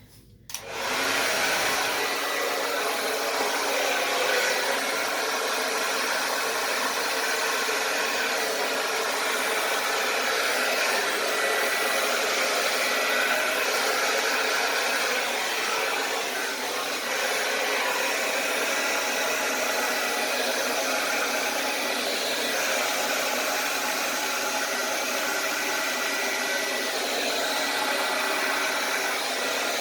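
Handheld hair dryer switched on about half a second in, then running steadily at a constant speed, its motor and airflow giving a loud, even rushing noise with a faint steady whine.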